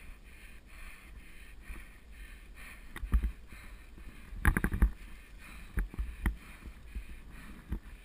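Mountain bike rolling fast over a dry-leaf singletrack: a steady rolling rustle with a faint pulsing rhythm, broken by sharp rattling knocks as the bike jolts over bumps. The loudest is a quick cluster of rattles about four and a half seconds in.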